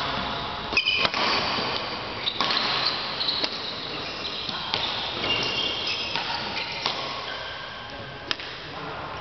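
Badminton rally: rackets striking the shuttlecock in sharp cracks every second or two, with sports shoes squeaking on the court floor, in an echoing sports hall.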